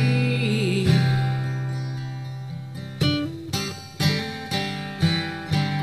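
Acoustic guitar accompaniment in a slow country song's instrumental gap. A chord rings out, then from about three seconds in the guitar strums roughly twice a second.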